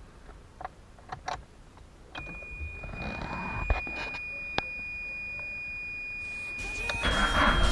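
A few switch and key clicks, then a steady high electronic beep tone from about two seconds in, with the Ford Scorpio's ignition on and its engine off. Near the end the tone steps higher as the engine is started up again.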